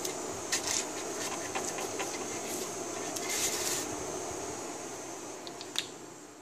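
Light rubbing and scraping in a metal cake pan lined with oiled butter paper, a few short scrapes over a steady background hum, fading toward the end.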